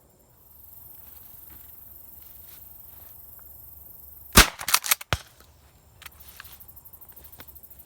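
A single loud shotgun blast about four seconds in, followed within a second by several fainter sharp reports or echoes. A steady high hiss runs underneath.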